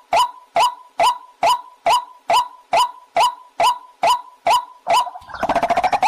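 White-breasted waterhen calling: a loud, sharp call with a ringing note, repeated evenly a bit over two times a second. About five seconds in, a denser run of overlapping harsh croaking calls takes over.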